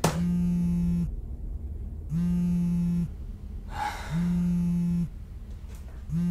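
Smartphone on vibrate buzzing against the desk with an incoming call: a low, steady buzz about a second long, repeating every two seconds, four times.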